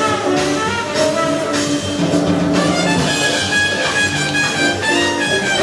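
Instrumental background music led by violin, with notes held and changing throughout.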